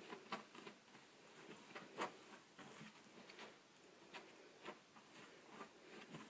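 Faint, irregular soft taps and clicks, a few a second, the loudest about two seconds in.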